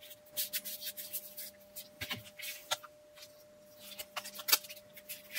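Hands handling a small battery pack and a paper-backed adhesive insulating pad: a string of short scratchy rustles and clicks as paper and pad are rubbed and handled. A faint steady hum sits underneath.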